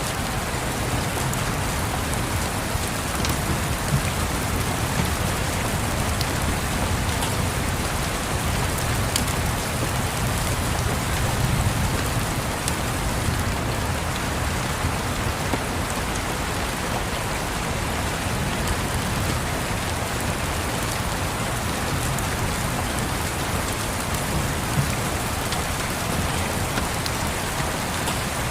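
Steady rain pattering, with scattered sharp crackles from a wood fire and a continuous low rumble underneath.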